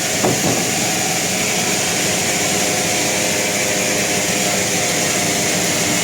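Sawmill machinery running steadily: an engine-driven hum with a strong high hiss, and a brief knock about a quarter-second in.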